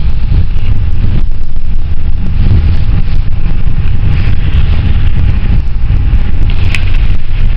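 Passenger van driving on a snowy road, heard from inside the cabin: a loud, steady low rumble of engine and tyres, with low buffeting on the microphone.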